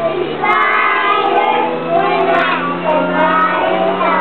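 A group of young children singing a song together, with a steady low tone running underneath.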